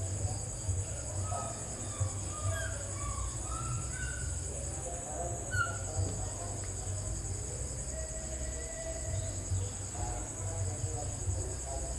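Insects droning steadily in a high-pitched chorus, with scattered short chirping calls and a low rumble underneath.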